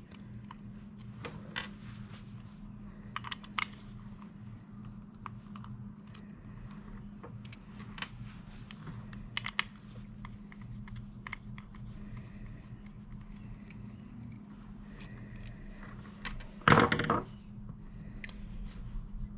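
Scattered light clicks and taps of small parts being handled while a winch connector is taken apart, over a steady low hum. About 17 seconds in comes a louder, brief scraping rustle.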